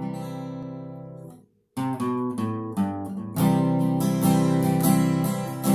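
Acoustic guitar: one chord struck and left to ring and fade, a brief silence, then the guitar comes back in with picked notes and settles about three seconds in into steady, louder strumming.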